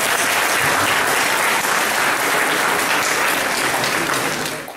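Audience applauding, a steady dense clapping that cuts off suddenly near the end.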